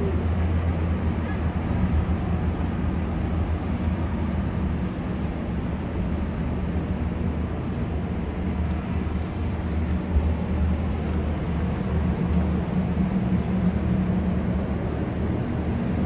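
Steady city street traffic noise: a continuous low rumble of road vehicles running.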